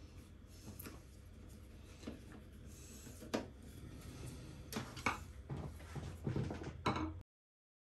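Hand screwdriver fastening a PC power supply into a metal computer case: scattered light clicks and taps of the tool and sheet metal over a faint low hum, with a few louder knocks near the end before the sound cuts out to total silence.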